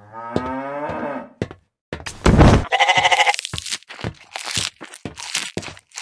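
A sheep bleats in one long call of about a second. A little after two seconds there is a thump, then a second animal call, followed by a run of quick clicks.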